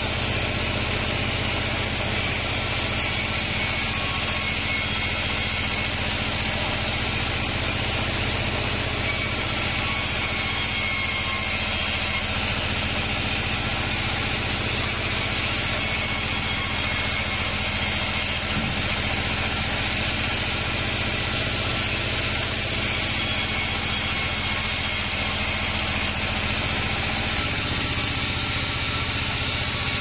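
Bandsaw sawmill running steadily as its band blade rips a kapok (randu) log fed along the carriage: a constant machine hum under a steady higher sawing whine.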